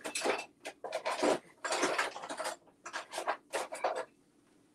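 Metal kitchen utensils and cutlery clattering and clinking in quick, irregular rattles as someone rummages for a utensil. The clatter stops about four seconds in.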